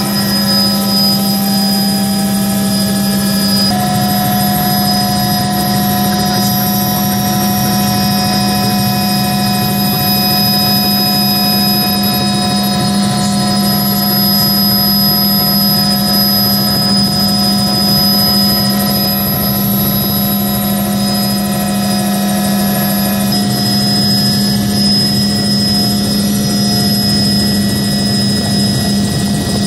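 Turbine helicopter heard from inside its cabin in flight: a steady low rotor and engine hum with several constant high-pitched turbine whines over it. A few of the whine tones shift slightly about four seconds in and again past the twenty-second mark.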